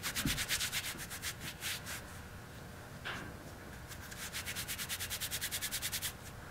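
Hands rubbing a small piece of wool back and forth between the palms, rolling it firm. The rubbing comes in quick, even strokes, several a second, in two spells with a pause of about two seconds between them.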